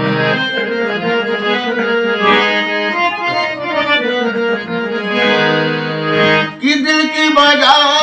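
Harmonium playing a melodic introduction, its reeds sounding sustained chords and a changing melody line. Near the end the playing turns sharper and more rhythmic.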